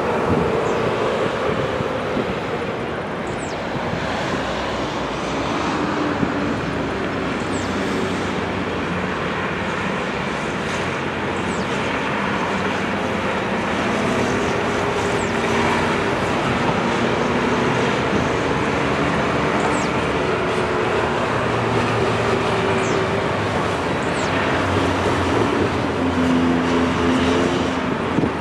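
Boeing 737-700's CFM56-7B turbofan engines running at taxi power as the airliner turns onto the runway to line up for takeoff: a steady jet noise with shifting hum tones, growing slightly louder near the end.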